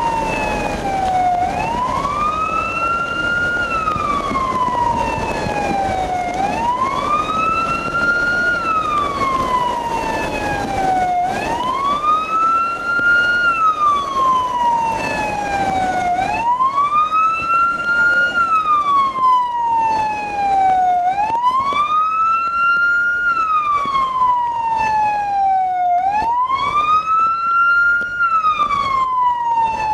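Ambulance siren wailing: a slow rise and fall in pitch that repeats about every five seconds.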